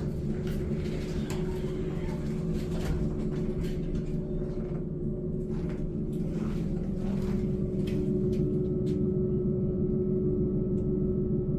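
Hydraulic elevator in motion: a steady mechanical hum with a low rumble, growing slightly louder about two-thirds of the way through, with a few light clicks early on.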